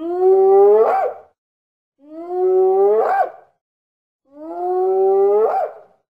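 Spotted hyena calling: three rising calls about two seconds apart, each ending in a quick upward flick of pitch.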